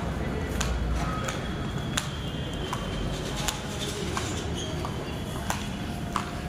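Footsteps and scattered sharp clicks on the hard stairs and floor of a busy metro station exit, over the steady noise of the crowded station.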